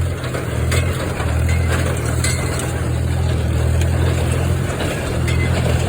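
Farmall M tractor's four-cylinder engine running steadily under load through a muffler while pulling a Ford 532 square baler, with a few short sharp knocks from the machinery.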